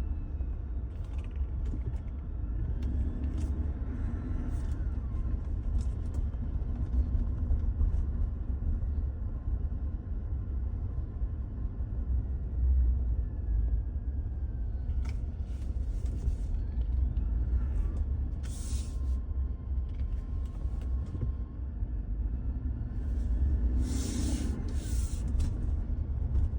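Steady low rumble of a road vehicle with a faint high whine in the background that slowly slides in pitch, and a few short hisses, the loudest about three-quarters of the way through.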